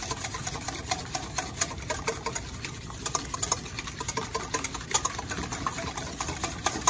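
Wire whisk beating eggs in a stainless steel mixing bowl: a fast, continuous run of clicks and taps as the wires strike the bowl.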